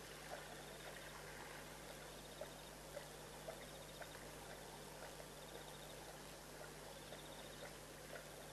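Lioness and cub lapping water, faint soft wet clicks about twice a second. A high pulsing trill repeats about every second and a half behind them, over a steady low hum.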